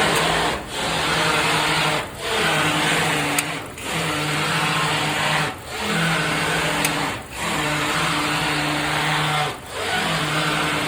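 Mechanical whirring hum from the front end of a 2019 Honda as the steering is worked back and forth. It comes in stretches of one and a half to two seconds with short breaks between, and a few faint clicks sound over it. The check is for a popping at the driver-side front that is taken for a failing CV axle.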